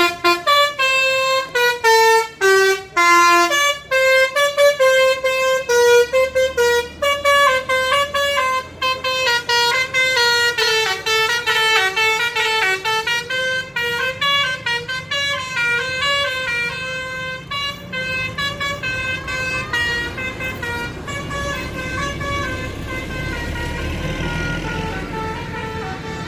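Bus telolet horn of the basuri type playing a long, fast tune of stepped notes that keeps changing pitch several times a second. A low rumble grows underneath in the last few seconds.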